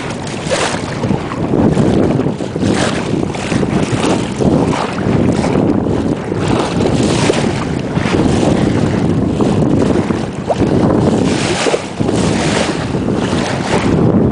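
Wind buffeting the microphone over the rush of water along a small sailboat's hull as it sails through choppy water, with repeated splashes of waves against the hull.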